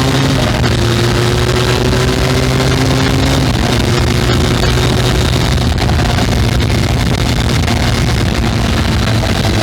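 Benelli 502C's 500 cc parallel-twin engine running on its stock exhaust under way. The note climbs slowly in pitch, drops briefly about half a second in and again around three and a half seconds in, as with upshifts, then holds steadier.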